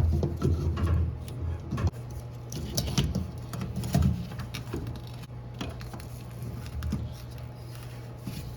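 Small clicks, taps and rattles of plastic and metal parts being handled while a fuel pump is worked out of its in-tank pump assembly, over a steady low hum.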